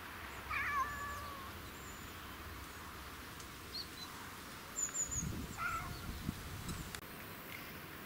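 A cat meowing twice: a longer call about half a second in and a shorter one a little past the middle. Around the second call come several low rustling knocks, with faint high chirps.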